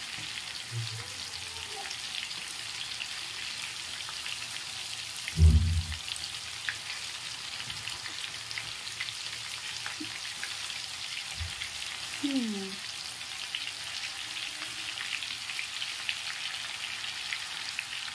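Spice-coated fish pieces shallow-frying in hot oil in a pan: a steady, crackling sizzle full of tiny pops. A dull thump comes about five seconds in.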